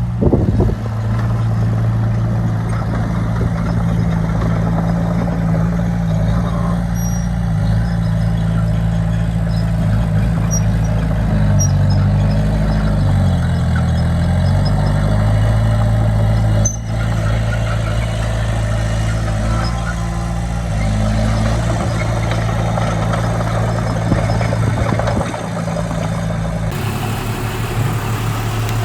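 Heavy diesel engines of earthmoving machinery, a bulldozer and dump trucks, running steadily at a land-fill. About halfway through, the engine pitch dips and then climbs back.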